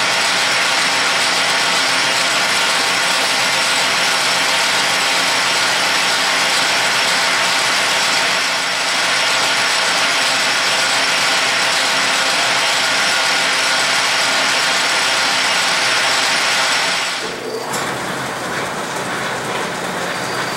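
Metal lathe running with its gear drive whirring steadily while a cutting tool turns a brass workpiece. About 17 seconds in the noise drops, and the lathe runs on more quietly.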